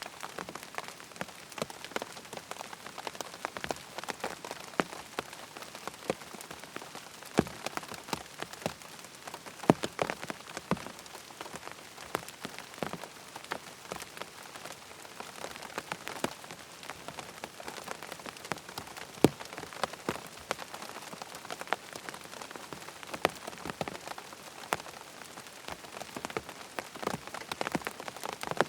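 Steady rain falling on a tent's fabric: a constant hiss of rain with many separate drops striking in sharp, irregular taps.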